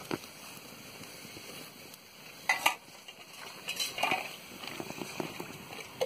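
Wood fire burning under an aluminium wok of quail cooking in coconut water, with a steady crackle and sizzle. Two louder clatters come about two and a half and four seconds in.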